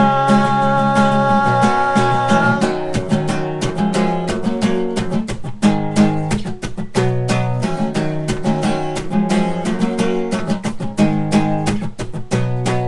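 Acoustic guitar strummed steadily, with a sung note held over it for the first couple of seconds before the guitar carries on alone.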